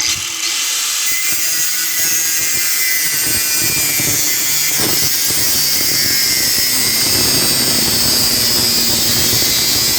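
Angle grinder with a thick cutoff wheel cutting steadily into metal, a loud grinding hiss with a high whine, cutting a slot down to full wheel depth. It starts abruptly and runs without letting up.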